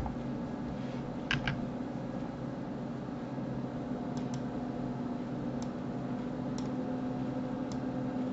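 Steady low background hum with computer keyboard and mouse clicks: two clicks about a second and a half in, then a few faint ones spaced through the rest.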